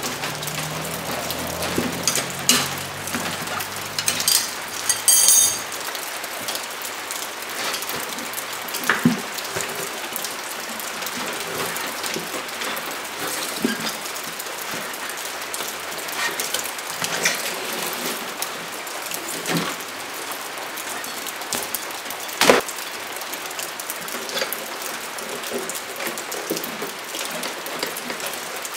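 Steel tire irons clinking and scraping against a dirt bike's spoked rim as the tire is levered off and the inner tube pulled out: scattered sharp clicks and knocks, with a brief high squeak about five seconds in, over a steady hiss.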